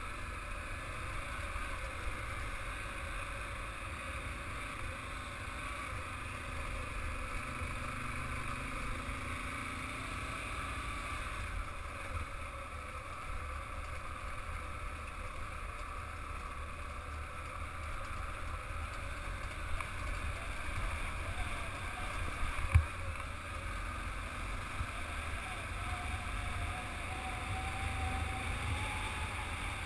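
Motorcycle engine running steadily while riding over a dirt track, with wind on the microphone. A single sharp knock about three-quarters through, from a bump in the track.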